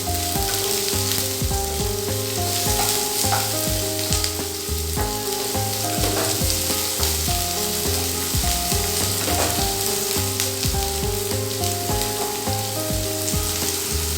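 Chopped onions sizzling steadily in hot sunflower oil in a kadai while they are lightly fried.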